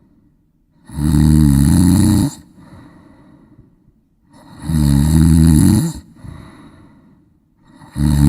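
A child snoring in sleep: three loud snores, each about a second and a half long, coming about every three and a half seconds, with faint breathing between them. The third snore starts near the end.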